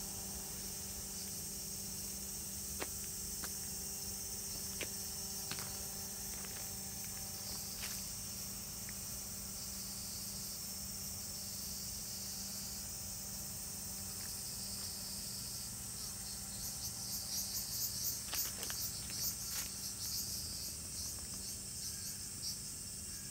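Cicadas droning in a steady high-pitched summer chorus. Past the middle a nearer cicada's pulsing call rises loudly for a few seconds, then fades back into the chorus.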